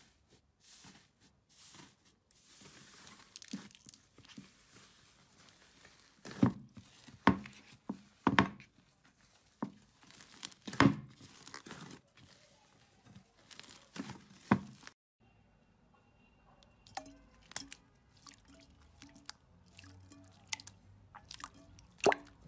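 Hands kneading and squishing thick blue slime: a soft crinkling tear, then a string of loud sharp pops and crackles as it is pressed. About two-thirds of the way in, this gives way to clear green slime being squeezed, with smaller wet clicks.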